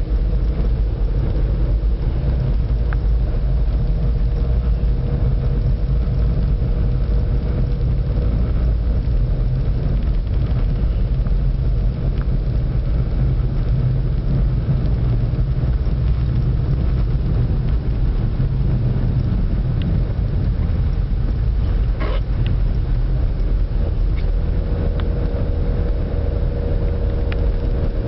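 Steady low rumble of a car driving on a snow-covered road, heard from inside the cabin: engine drone and tyre noise with a faint steady hum.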